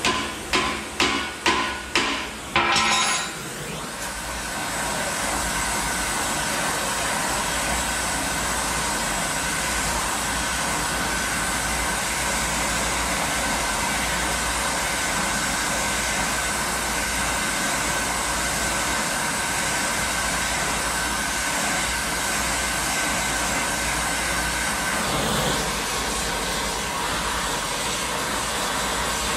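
A hammer striking a steel leaf spring about five times, roughly two blows a second, then an oxy-fuel torch hissing steadily as it heats the spring's end to soften it for clamping closed.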